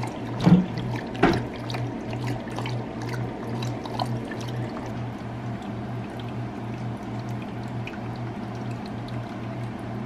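Water trickling and splashing in an electric pet drinking fountain while animals lap at it, with many small drips and two sharp knocks about half a second and just over a second in. Music with a steady low pulse about twice a second plays underneath.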